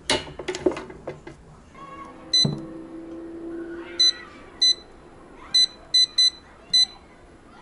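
A large 6-litre air fryer's touch control panel beeps as its buttons are pressed to set the temperature and cooking time. There are about seven short, high beeps at uneven spacing. At the start come a few sharp clacks as the fryer's basket is pushed shut.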